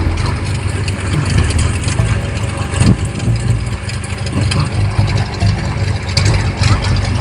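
Small agricultural aircraft's engine running steadily at idle, a low uneven rumble with scattered clicks and knocks over it.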